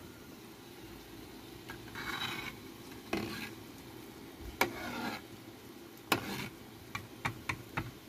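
Wood fire under a pot of boiling kithul palm sap, crackling with short hissing bursts and sharp pops, the pops coming fast near the end, over a steady low rumble.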